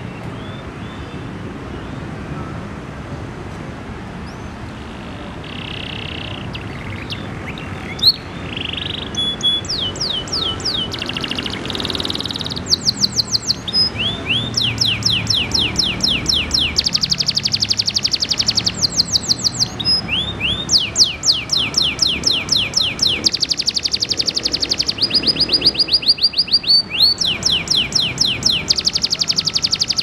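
Canary singing in full, constant song: a few short phrases a few seconds in, then long fast rolling trills and rapid runs of repeated high notes with short breaks between them, over a low steady background rumble.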